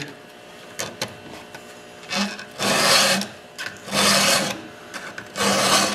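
A hand file is pushed across a chainsaw chain's cutting tooth in three even strokes, each a rasping scrape of under a second, sharpening the tooth. A faint tick or two come before the strokes.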